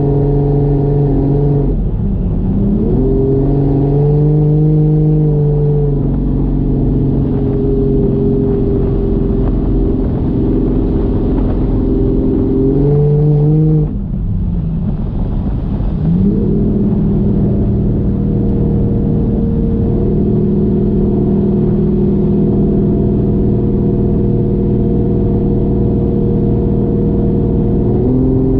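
Toyota 1JZ inline-six engine in a Fox Body Mustang driving under part throttle, its pitch dropping and climbing again several times as the throttle is eased off and reapplied. It dips briefly quieter about fourteen seconds in on a lift-off, then pulls steadily again, stepping up near the end.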